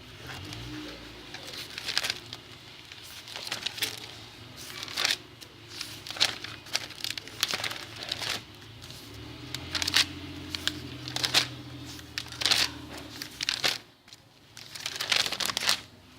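Paper notebook pages being turned and handled, an irregular rustle of paper every second or so.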